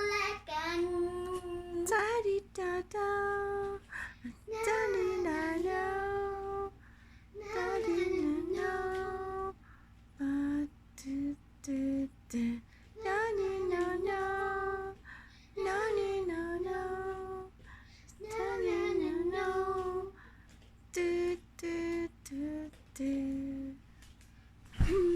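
A child singing a Thai pop song unaccompanied, in sung phrases with short pauses between them.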